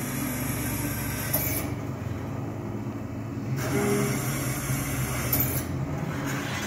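Drill press running with a steady motor hum, and the bit boring into a workpiece twice in hissy stretches, about a second each at the start and in the middle.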